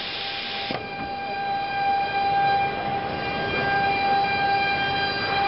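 ATC CNC router spindle running at speed: a steady high whine with several overtones. A hiss sits over it for the first moment and cuts off suddenly under a second in.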